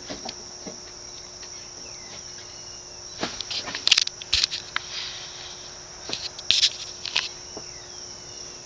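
Ceiling fan running at a low setting on a solid-state variable-speed control, with a faint steady hum. Over it runs a steady high-pitched, insect-like chirring, and there are several sharp clicks in the middle.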